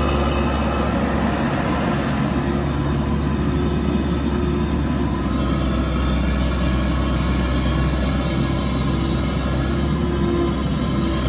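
Diesel engine of a Komatsu PC88MR-6 zero-tail mini excavator running steadily while the machine slews round with its arm out.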